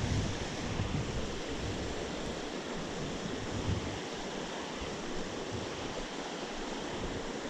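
Steady rushing of flowing creek water and rain, with low wind rumble on the microphone in the first few seconds.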